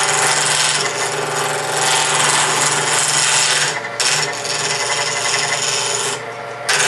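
Wood lathe spinning a six-sided wooden column while a hand-held turning tool cuts into it, a loud rasping cut over the steady hum of the lathe motor, breaking off briefly twice as the tool is eased away. It is the first roughing of the hexagonal blank toward round.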